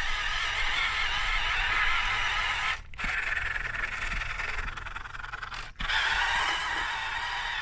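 Radio-controlled tracked truck driving over loose sand: a steady whine from its electric motors and gearboxes with the plastic tracks scraping and rattling. The sound cuts out briefly twice.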